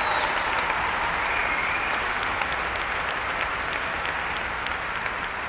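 Large audience applauding, the clapping slowly fading.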